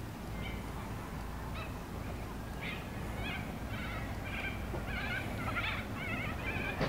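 Narrow-gauge grain hopper wagons rolling slowly past with a steady low rumble. Over it come short, wavering high squeals and chirps, growing thicker from about two and a half seconds in.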